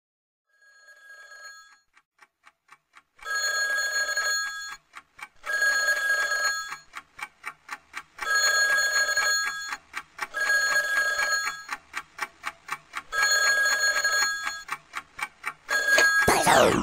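A telephone-style bell ringing in repeated bursts of about a second, with fainter ticks in the gaps. Just before the end a loud sweeping rush of noise cuts in.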